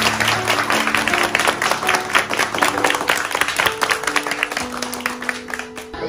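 A group of people clapping in applause, with background music of held notes that change pitch every second or so.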